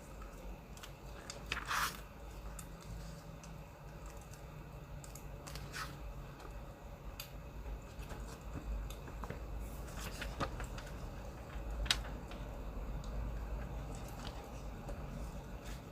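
Wood fire crackling, with a scattering of sharp pops over a low steady rumble.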